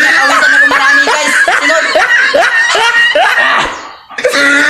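Laughter: a quick run of short 'ha' sounds, about three a second, dying away about four seconds in and then starting up again.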